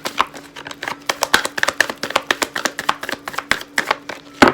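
Tarot cards being shuffled by hand: a quick, irregular run of card clicks and slaps, with one sharper knock near the end.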